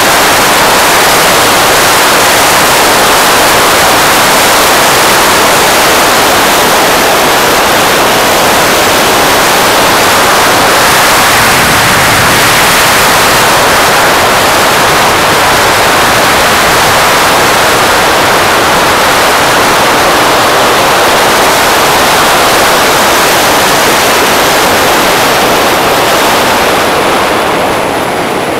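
Loud, steady rush of wind buffeting the microphone of a scooter riding at speed, with road and engine noise underneath. It eases a little near the end as the scooter slows.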